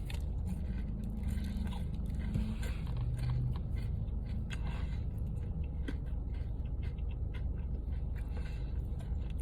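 A person chewing a bite of a crispy-bread popcorn chicken po' boy sandwich: small scattered crunches and crackles over a steady low hum.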